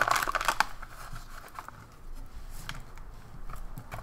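An MRE foil pouch of raisins crinkling as it is handled and shaken out over a metal mess tray. The crinkling is loudest in the first half second, then goes on as light scattered ticks.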